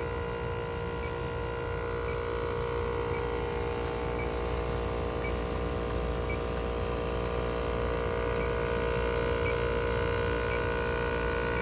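ClimateMaster water-source heat pump running: a steady mechanical hum made of several held tones, with a faint tick about once a second.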